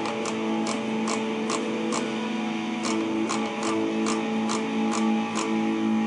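Electric guitar playing a hard rock song solo: chords picked about twice a second, with notes ringing on between strokes.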